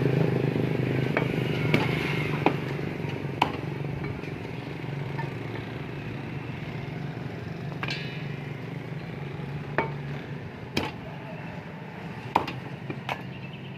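A blade chopping raw chicken on a cutting board: about nine sharp, separate chops at uneven intervals, over a steady low engine-like drone that slowly fades.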